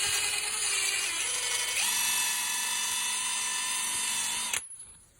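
Cordless impact gun spinning a socket freely, its motor whine stepping up in speed twice and then stopping abruptly about four and a half seconds in.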